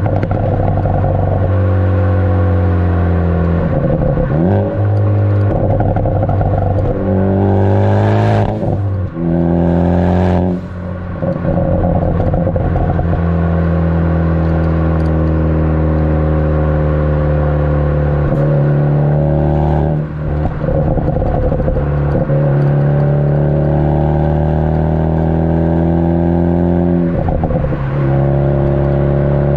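Ford Focus ST's turbocharged four-cylinder heard at the tailpipe through a Borla cat-back exhaust while driving, running steadily between several gear changes, each a short dip with a change in pitch. Brief crackling pops from the pops-and-crackles tune come around the shifts near eight and ten seconds in.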